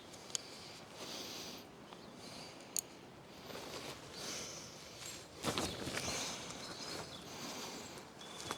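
Rustling and handling noises with a few sharp clicks, the loudest rustle about five and a half seconds in, over a faint steady high hiss of the outdoors.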